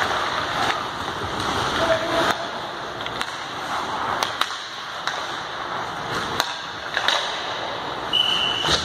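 Hockey skates scraping and carving on rink ice, with several sharp clacks of sticks striking pucks. A brief high whistle blast sounds near the end.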